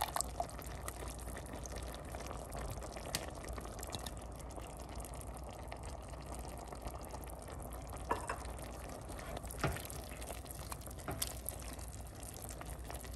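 Browned ground beef and onion sizzling gently in a pot as tomato sauce is added and a wooden spoon stirs it through the meat, with a few scattered sharp taps against the pot.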